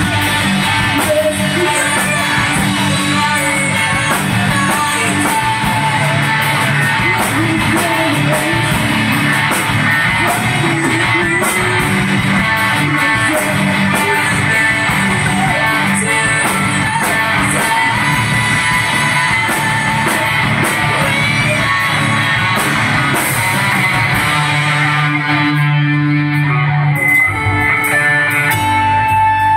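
Live rock band playing loud and amplified: two electric guitars, electric bass and a Ludwig drum kit. The cymbals drop out for a moment near the end while the guitars hold low notes.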